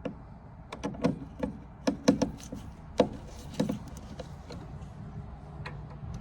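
Irregular sharp metallic clicks and knocks, a dozen or so bunched between about one and four seconds in, as brackets are fastened and tightened on a furnace's sheet-metal cabinet.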